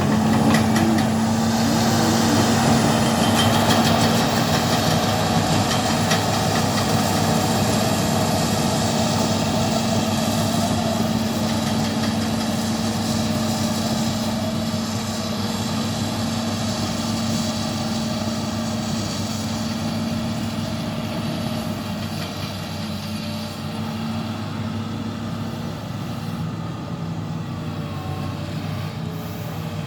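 Excavator's diesel engine running steadily with a constant low hum, slowly growing quieter.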